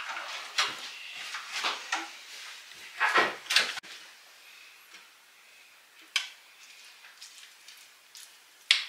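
Kitchen handling sounds: brief scrapes and clinks of dishes and utensils, busiest in the first few seconds, then quieter with single sharp knocks about six seconds in and near the end.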